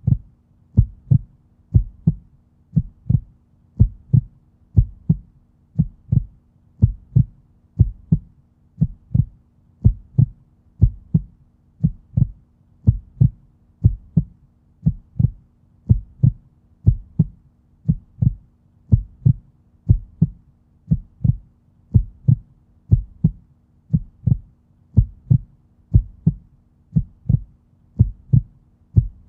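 Human heart sounds: a steady, regular run of low thuds, a little under two a second.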